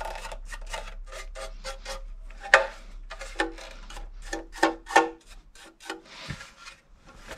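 Toothbrush bristles scrubbing along the moulded grooves and grille slots of a plastic radio case, a quick irregular run of short scratchy strokes, clearing dried Brasso polish residue out of the grooves.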